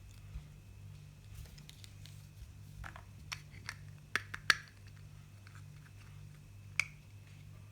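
Small hard clicks and taps of plastic toy makeup pieces being handled, with a cluster of sharper clicks about four seconds in and one more near the end.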